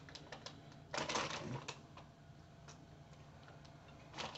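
Candy wrapper crinkling in scattered clicks as it is handled and torn open, with a denser patch about a second in and another near the end.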